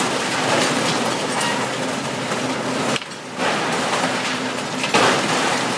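Komatsu hydraulic excavator's diesel engine running under load as its bucket tears into a brick wall, with debris crunching and clattering down. The noise dips briefly about halfway, then a louder crash of falling rubble comes near the end.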